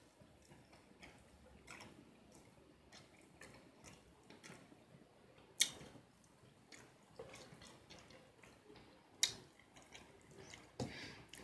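Faint wet mouth sounds of someone chewing fried chicken coated in sauce, with scattered small clicks and two sharper lip smacks or clicks, one about five and a half seconds in and one about nine seconds in.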